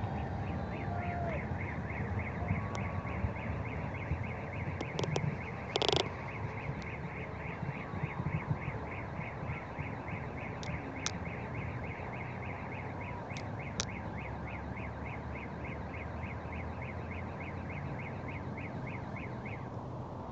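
Distant fireworks going off: a few sharp bangs about five and six seconds in and fainter cracks later, over a steady low rumble. A high, evenly pulsed chirp repeats about three times a second and stops near the end.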